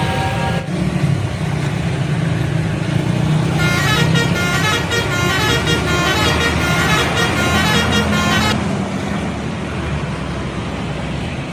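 Indonesian bus telolet horn playing a quick run of changing musical notes for about five seconds, over the steady rumble of the bus's engine. A first horn tone cuts off just under a second in, and after the melody only the engine is heard.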